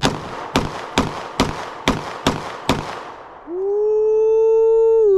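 Springfield Echelon 4.0C 9mm pistol fired seven times in quick succession, about two shots a second. About three and a half seconds in, a loud steady held tone follows.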